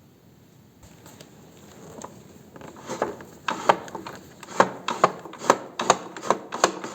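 Aluminum saddlebag latch lever on a Harley touring saddlebag being worked open and shut, sharp clicks about twice a second that grow louder from about three seconds in.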